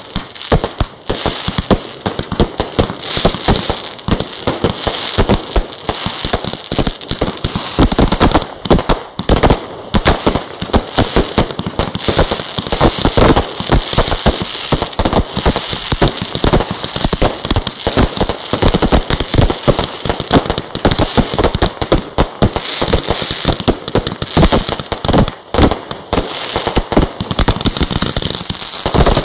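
Fireworks display in full barrage: aerial shells bursting one after another in quick, unbroken succession, with crackling stars mixed in.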